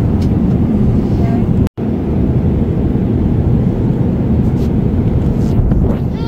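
Steady low rumble of an airliner cabin in flight, the noise of the jet engines and rushing air, broken by a momentary gap a little under two seconds in.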